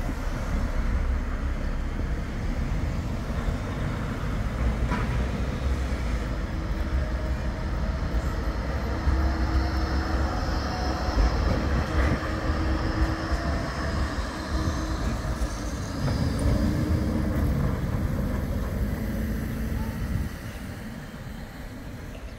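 Bombardier Flexity 2 tram passing close by on street track: a steady low rumble of wheels on rail with a humming tone from its electric drive, the tone bending in pitch shortly before the sound falls away near the end.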